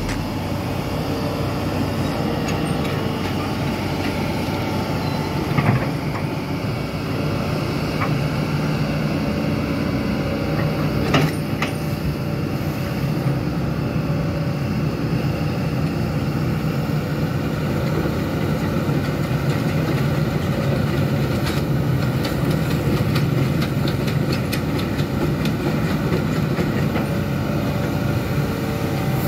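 Hitachi amphibious excavator's diesel engine running steadily under working load as the machine digs, with a few short clanks.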